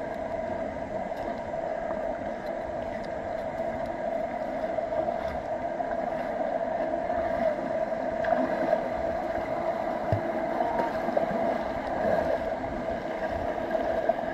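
Shallow river water running over rocks: a steady rushing gurgle.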